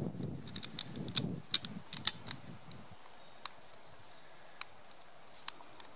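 Small sharp clicks and taps of a plastic aquarium float and a thin piece of soda-can aluminium being handled as the float's threaded stem is fitted through the hole. A rough rubbing opens it; the clicks come thick for about three seconds, then only a few, spaced out.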